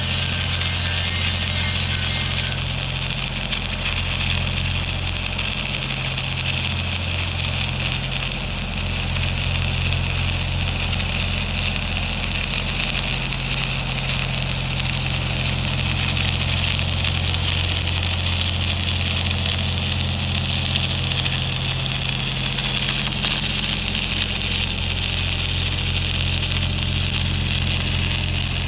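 Stick-welding arc with E6010/E7010 electrodes, a steady crackling hiss that runs on unbroken, over a constant low hum from the welding machine.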